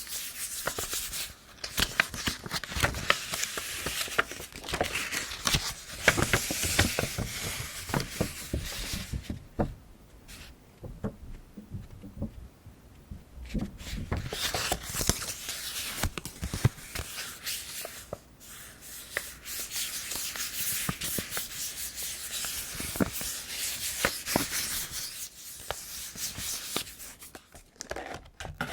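Hands rustling and rubbing packaging material as it is handled and unwrapped, with scattered small clicks and taps. It goes quieter for several seconds about a third of the way through.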